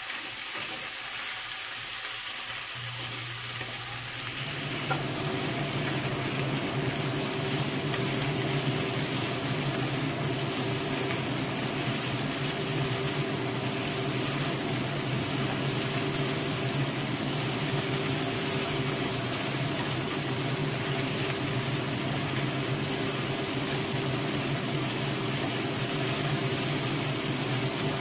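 Shrimp sizzling in hot oil in a frying pan as they are stirred and turned with a spatula. A steady hum joins about four seconds in and carries on under the sizzle.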